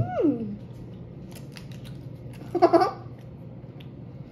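A child's voice makes a short sliding 'mmm' sound, rising then falling in pitch, right at the start. A short giggle follows about two and a half seconds in, with a few faint clicks in between, over a faint steady low hum.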